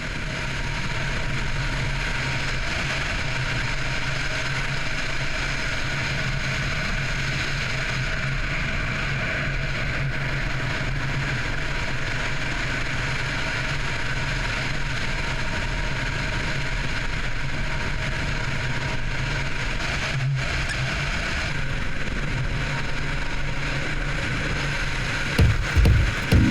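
A car driving steadily along a road, with a continuous engine drone and tyre and road noise.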